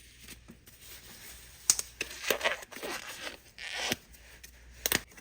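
Protective gloves being pulled on: rustling, stretching and rubbing of the glove material, with a sharp click a little under two seconds in and another near the end.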